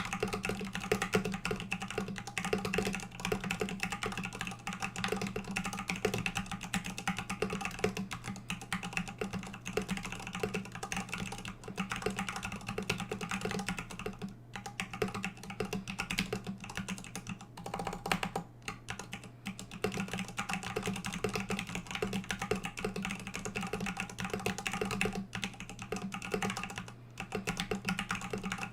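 Steady typing on a custom mechanical keyboard with vintage Cherry MX Black linear switches on a steel plate, in an acrylic case with high-profile MT3 PBT keycaps: keystrokes in quick, continuous succession over a steady low hum.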